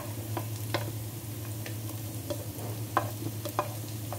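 Black slotted spoon clacking and scraping against a plate and a nonstick wok as shredded cabbage and green capsicum are tipped in, in irregular sharp taps about every half second to second, over vegetables sizzling lightly in oil and a steady low hum.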